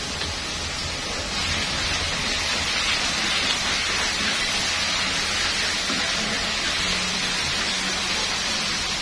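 Ground chilli and spice paste sizzling in hot oil in a large aluminium wok, stirred with a long spatula; the sizzle is a steady hiss that grows louder about a second and a half in.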